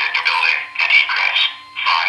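Recorded voice evacuation message played by a DV-200 voice evac unit through a fire alarm speaker, thin and tinny, in short phrases with a steady low hum underneath.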